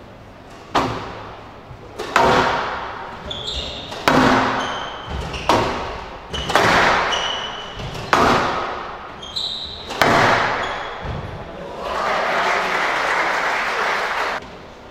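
Squash rally: the hard rubber ball is struck and smacks the walls about every one and a half seconds, each hit ringing in the enclosed court, with court shoes squeaking on the wooden floor between shots. The hitting stops about ten seconds in, and a couple of seconds of steady broad noise follow near the end.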